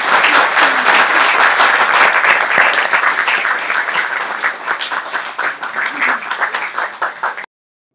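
Audience applauding: dense clapping that eases a little, then cuts off abruptly near the end.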